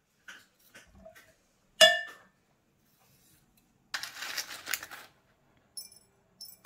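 Kitchen knife cutting peeled cucumber with a few soft clicks, then one loud ringing clink of kitchenware just under two seconds in. About a second of rustling follows later, and two light clinks near the end.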